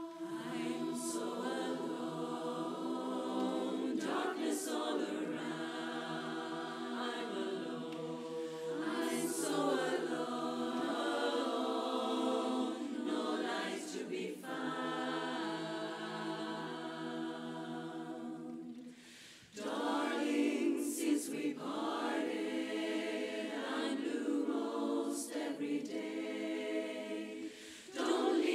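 Women's barbershop chorus singing a cappella in close harmony, holding long chords. The singing breaks off briefly about two-thirds of the way through and again just before the end, then comes back in louder.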